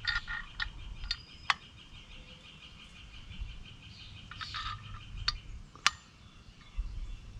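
Scattered light metallic clicks and taps as steel bolts and cart-tongue parts are handled and fitted, over a faint steady high-pitched chirring in the background.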